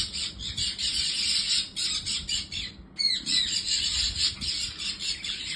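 Budgerigars chattering and squawking, many short high calls overlapping, breaking off briefly a little before three seconds in.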